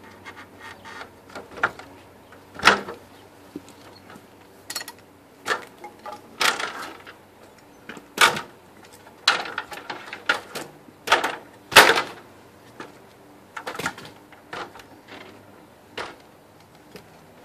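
Irregular knocks, bumps and clatter of wooden framing boards and a stepladder being handled and moved, a dozen or so sharp knocks spread out unevenly, the loudest about two-thirds of the way through.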